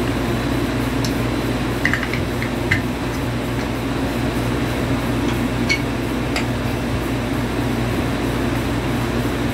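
A steady mechanical hum, with a few light clicks and knocks of wooden toy train track pieces being handled and fitted together on a carpet.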